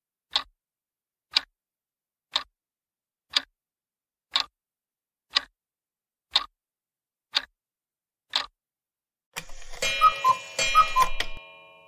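Countdown-timer clock ticks, nine in a row at one per second, followed about nine and a half seconds in by a bright ringing chime sound effect with two pairs of notes that dies away. The chime marks the reveal of the correct answer.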